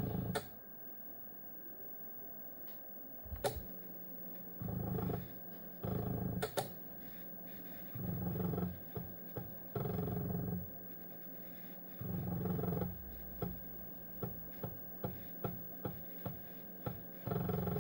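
Floppy disk drive on a ZX Spectrum's FIZ disk interface, seeking while loading a game: repeated bursts of rough buzzing about a second long as the head steps rapidly across tracks, with single clicks of the head stepping between them, about two a second near the end.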